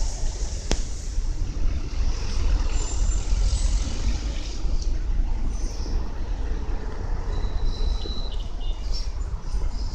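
Outdoor street ambience: a steady, unsteady-level low rumble with a faint hiss above it. There is a single sharp click about a second in, and a brief thin high tone around seven to eight seconds in.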